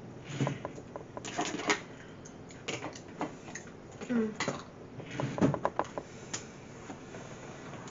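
Snack packaging being handled: scattered crinkles and sharp clicks in several short bursts. A brief hum from a woman's voice about four seconds in.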